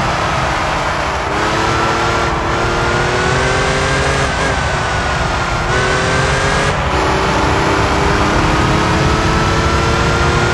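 Air-cooled flat-six of a Porsche 911 (964) pulling at highway speed, its pitch rising slowly and breaking off several times as revs change. A heavy rush of road noise runs underneath.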